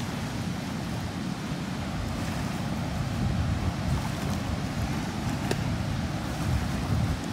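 Steady rush of water pouring out through the spillway gates, with wind buffeting the microphone.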